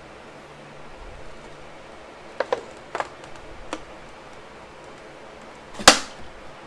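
Utility knife blade slicing through the thin plastic wall of a 2-liter soda bottle, giving a few sharp plastic clicks as the blade catches and the plastic flexes, the loudest one near the end.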